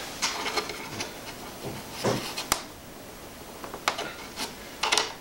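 Small clicks and rustling of hands working a metal aileron pushrod and its plastic ball links on an RC biplane, with a couple of sharp single clicks, one about two and a half seconds in and another near four seconds.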